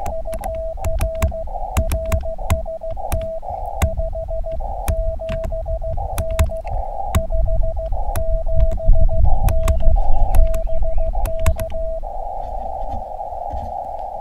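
Elecraft KX2 transceiver sending Morse code: a single steady sidetone keyed on and off in dits and dahs, with band hiss through the narrow CW filter filling the gaps between characters. About twelve seconds in the keying stops and only the steady hiss is left as the radio listens for a reply. Sharp clicks are heard along the way.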